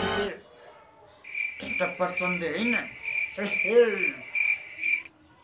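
Cricket chirping: a high, evenly pulsing chirp that starts about a second in and cuts off abruptly after about four seconds. A few short vocal sounds are heard under it.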